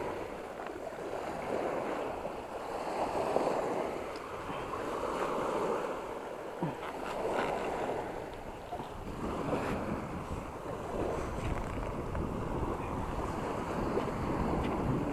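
Surf washing onto a beach, swelling and fading in waves every couple of seconds, with wind buffeting the microphone.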